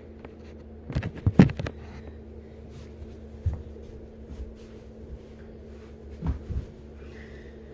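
A few scattered plastic clicks and knocks from handling the Lego RC car and its controls, over a steady low hum.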